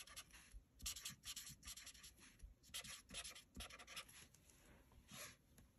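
Pen writing on paper: faint, quick scratching strokes that thin out and stop about five seconds in.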